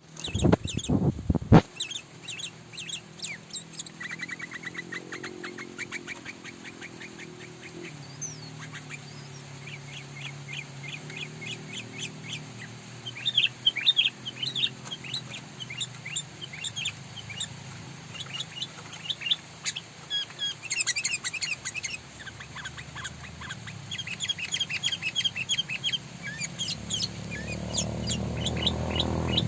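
Sooty-headed bulbul (kutilang) calling in quick runs of short, high chirps and chattering notes throughout, over a low steady hum. A few loud knocks come in the first second and a half.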